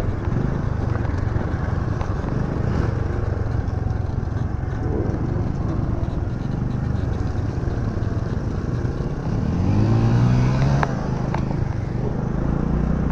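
Riding noise from a Honda scooter on a rough gravel road: engine running with a steady rush of wind and road noise. About ten seconds in an engine briefly revs up, rising in pitch, with a couple of sharp clicks.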